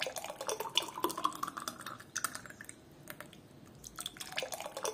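Thick juice poured from a jug into a glass mug, splashing and gurgling into the glass, in two pours with a quieter gap between them.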